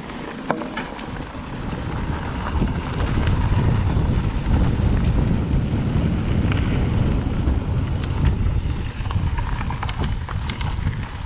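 Wind buffeting the microphone and tyre rumble during a mountain bike descent on a Canyon Neuron, building up over the first few seconds as speed picks up. A few sharp clicks come through about half a second in, and a cluster of them near the end.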